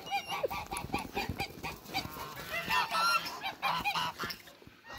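A flock of domestic geese honking, many short calls overlapping in quick succession, dying down near the end.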